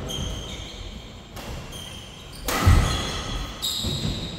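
Badminton doubles rally: rackets striking the shuttlecock, feet thudding and shoes squeaking in short high chirps on the synthetic court mat, with the heaviest thud about two and a half seconds in.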